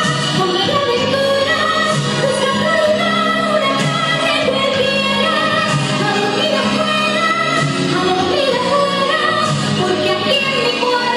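A song playing loud and continuous, with singing over a full instrumental backing.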